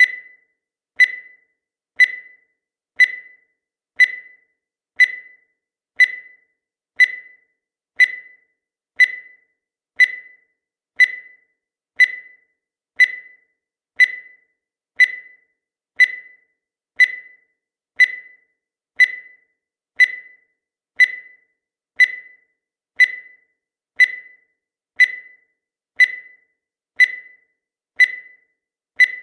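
Countdown timer sound effect: a short, high electronic beep once every second, each dying away quickly.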